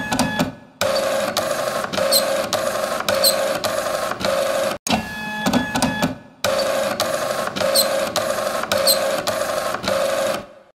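A small household machine running with a regular mechanical clatter, about two to three strokes a second. The same short recording plays twice, each time after a brief start-up.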